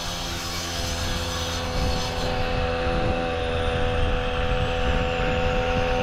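A machine engine running steadily, a droning hum that grows gradually louder.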